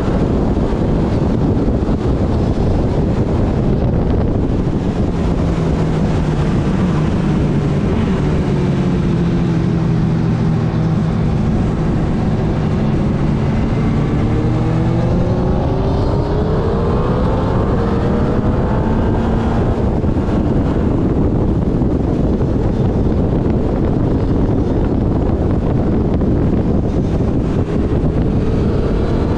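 Motorcycle engine at speed on a race track, under heavy wind noise on the microphone. The engine note drops around eight to twelve seconds in as the bike slows for a corner, then climbs as it accelerates out, and climbs again near the end.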